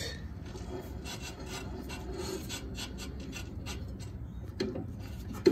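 Dry scraping and rubbing of metal parts at the tow dolly's wheel hub, a run of faint, irregular rasping strokes.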